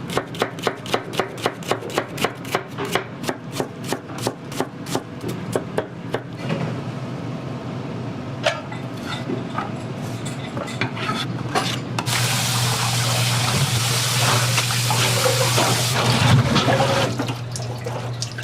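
A kitchen knife chopping quickly on a cutting board, about three cuts a second, followed by utensil clatter. About twelve seconds in, a loud rush of running water starts suddenly and stops about four seconds later.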